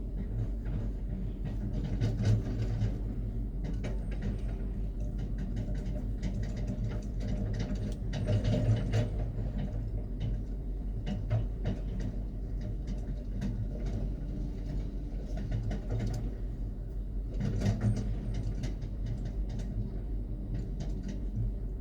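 Heavy-machinery diesel engine running steadily under load, with bouts of metallic clanking and rattling several times as the loudness rises.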